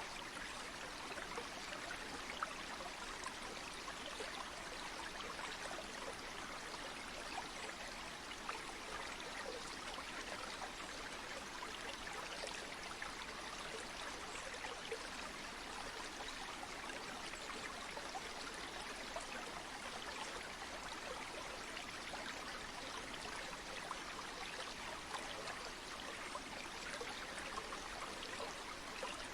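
Steady flow of a river or stream, a continuous rushing with small splashes and trickles throughout.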